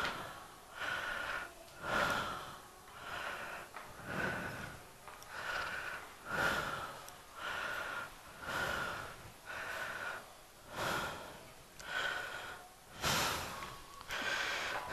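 A man's heavy, fast breathing close to the microphone, about one breath a second, as he is out of breath from climbing four floors of stairs.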